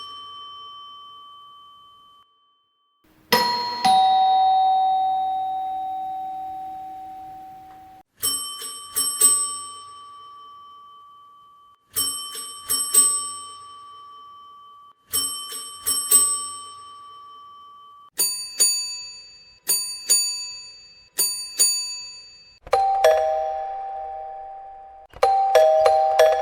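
A string of different doorbell chimes played one after another. The sequence runs: a single strike with a long ringing tone, three two-strike rings, a few quick short rings, then two two-note ding-dong chimes.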